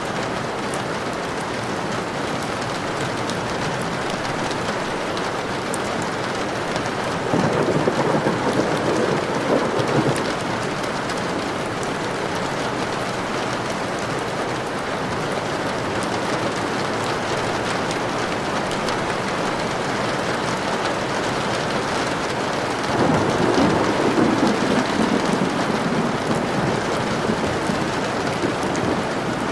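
Steady rain, with two rolls of thunder: one about seven seconds in and another about twenty-three seconds in, each swelling for a few seconds.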